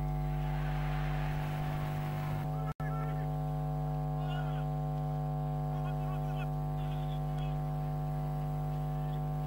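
Steady electrical hum with a stack of overtones, with faint crowd noise and faint distant voices underneath; the sound cuts out for an instant about three seconds in.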